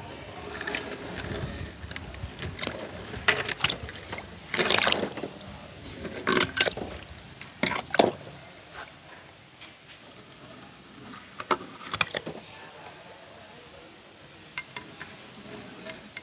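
Die-cast toy cars dropping one after another off a ledge into a tub of water: a series of short, sharp splashes, the longest and loudest about five seconds in, with a couple more near the end.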